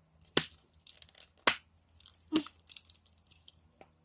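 Plastic packaging crinkling and crackling as it is handled, with two sharp snaps, about half a second and a second and a half in.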